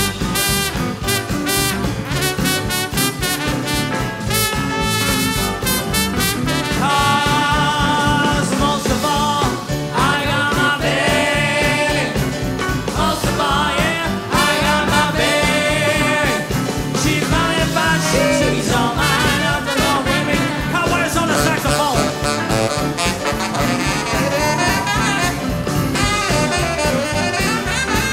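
Swing band playing an instrumental passage, brass instruments carrying the tune over a steady swing beat.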